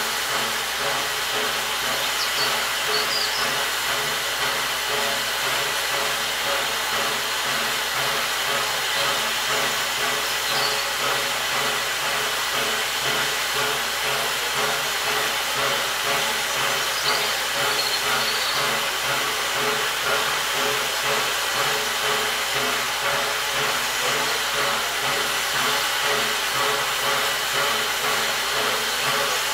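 BR Standard Class 4MT 4-6-0 steam locomotive working slowly towards the listener: a steady hiss of steam with a fast, regular pulse of exhaust beats running beneath it.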